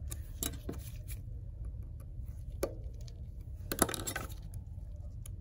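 Light clicks and taps of metal tweezers and small phone parts being handled, over a low steady hum. A louder clatter comes about four seconds in, as the tweezers are set down on the work surface.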